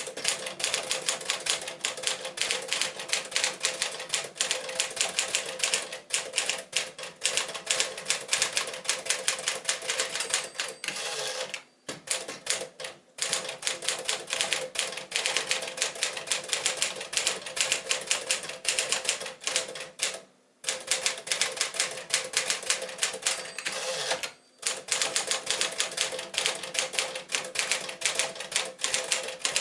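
1957 Smith-Corona Clipper manual portable typewriter being typed on at a brisk pace, a rapid run of key strikes. The typing stops for a moment three times.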